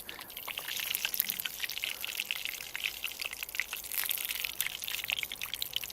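Hot coconut fat sizzling and crackling around the cast-iron parts of an antique meat grinder being deep-fried to season them.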